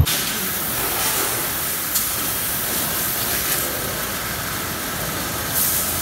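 High-pressure water jet from a pressure-washer lance hissing steadily as it sprays a motorcycle, with a few brief surges in the spray.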